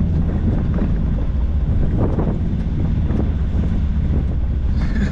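An off-road vehicle's engine running steadily at low revs, a low rumble, with wind buffeting the microphone and a few faint knocks.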